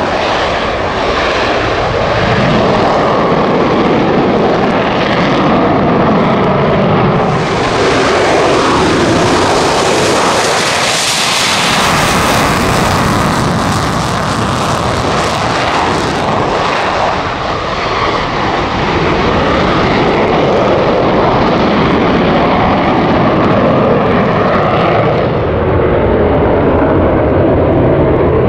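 Lockheed Martin F-35A Lightning II fighters taking off, the single Pratt & Whitney F135 turbofan of each running at takeoff power without afterburner: a loud, continuous jet roar. It turns brighter and harsher about a third of the way in as the next jet rolls down the runway and passes, then eases off slightly.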